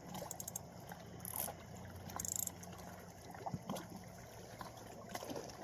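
Small waves lapping and trickling at the shoreline, with scattered light splashes and a low steady hum in the background.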